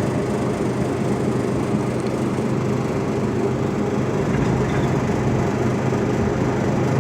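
Steady low mechanical hum with a few constant low tones, even and unbroken.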